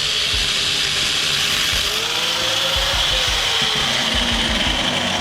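Power cutting tool cutting through a bolt on an electric motor's housing: a steady grinding hiss, with the tool's motor tone sagging and rising again as it bites into the metal.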